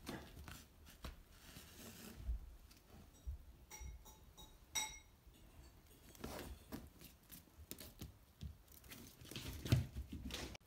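Faint, close rustling and scratching of fabric with scattered light clicks, two short ringing pings about four seconds in, and a soft thump near the end.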